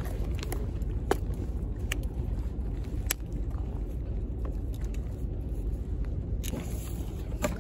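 Steady low wind rumble on the microphone, with several sharp clicks and knocks from a landing net and its pole being handled, the clearest about one, two and three seconds in and two more near the end.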